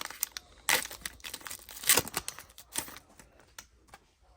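Foil booster-pack wrapper of a Pokémon Sun and Moon pack crinkling and tearing open by hand: a quick run of crackles with two louder rips about one and two seconds in, then quieter rustling.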